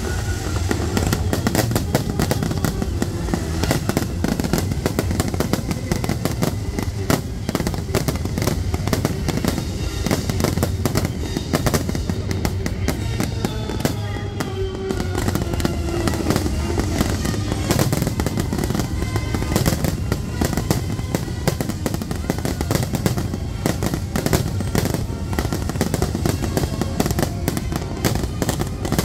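Aerial fireworks shells launching and bursting in a rapid, unbroken volley of overlapping bangs, with music playing underneath.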